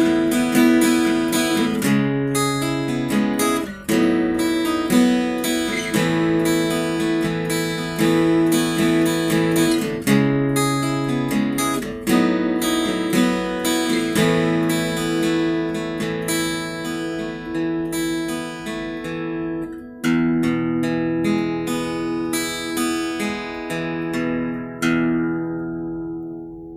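Ibanez AEL40SE acoustic-electric guitar with a solid spruce top and flamed sycamore back and sides, playing a chord progression. A new chord sounds about every two seconds, and the last chord is left ringing and fades out near the end.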